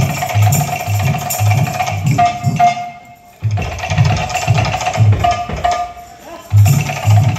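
Kirtan music: drums beat a quick rhythm of about four strokes a second under a held tone and bright metallic strikes. The music breaks off for about half a second roughly three seconds in, then starts again.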